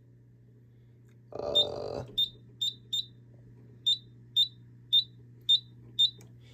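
Fire alarm signal sounding in march time rather than continuously: short high-pitched beeps about two a second, with a pause near the start. About a second and a half in there is a brief, louder burst of noise.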